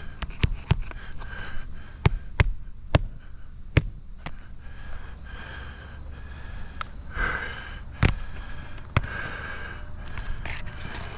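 Hammer driving roofing nails into asphalt shingles: irregular sharp strikes, several in quick succession in the first four seconds and a couple more later, with short bursts of hissing noise in between.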